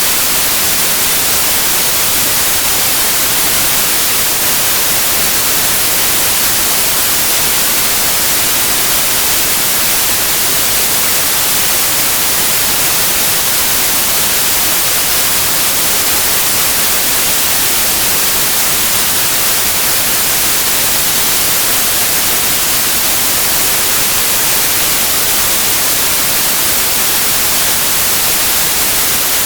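Steady, loud white noise: an even hiss with no melody, rhythm or changes, weighted toward the high frequencies.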